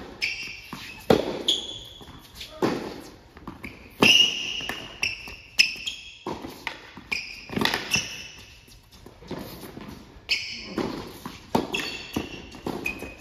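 Tennis rally: sharp racket strikes on the ball and ball bounces on a hard court every second or two, echoing in a large indoor hall, with short sneaker squeaks as the players move.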